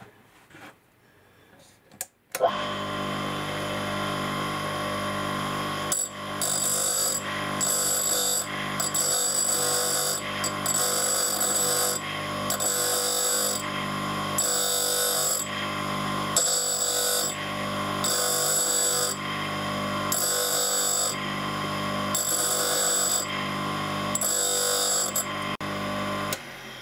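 Tool grinder motor starts about two seconds in and runs with a steady hum, then a screwdriver bit's tip is ground on the cup wheel in repeated short hissing passes, about one a second, taking metal off the front of the tip. The motor cuts off just before the end.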